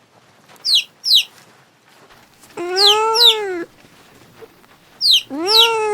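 Animal calls: two short high falling chirps, then two long pitched calls, each about a second long and rising then falling in pitch, with more quick high chirps over them.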